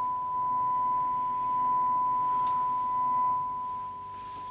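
A valve radio's loudspeaker sounds a steady, pure test tone: the signal generator's modulation tone, received on long wave at 150 kHz while the radio's alignment is checked.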